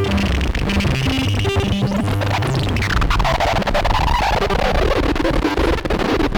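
Analogue synth VCO sequence of short stepped low notes played through the Djupviks Mörser Wasp-style stereo filter, its cutoff modulated by the module's clocked digital noise, giving a noisy, crackling texture. About two seconds in, a resonant sweep falls from high to low and then curls back up.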